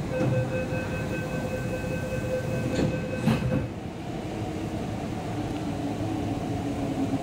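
At an MTR East Rail Line platform with platform gates, a steady electronic warning tone sounds for about three and a half seconds, with two knocks near its end as the train and platform-gate doors close. After that a lower, wavering hum of the train runs on.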